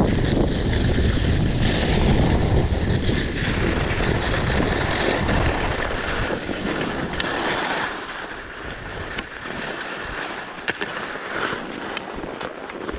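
Wind buffeting the microphone of a downhill skier, with skis hissing over packed snow. The heavy rumble drops off about eight seconds in as the skier slows, leaving a fainter snow hiss and a few small clicks.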